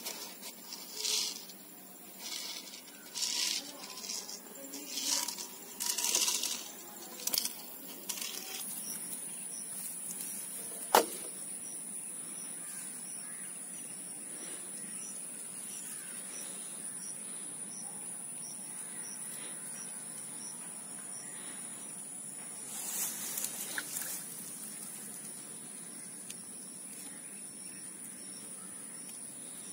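Several short rustles as the green plastic bottle trap is handled, then a steady high-pitched insect drone that starts about eight seconds in and continues. A single sharp click sounds about eleven seconds in, and a few more rustles come near the end.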